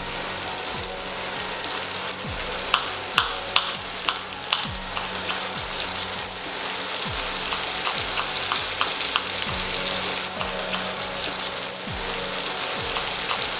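Sliced onions frying in butter and olive oil in a pan: a steady sizzle with small scattered pops.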